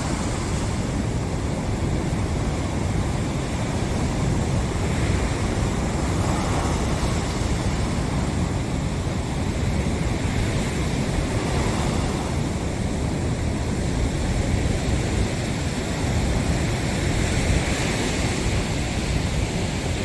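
Sea surf washing onto the beach, swelling gently every few seconds, with wind rumbling on the microphone.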